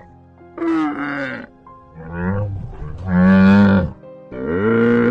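Camel calling: four drawn-out, low, pitched calls one after another, the third the loudest, the last still sounding at the end.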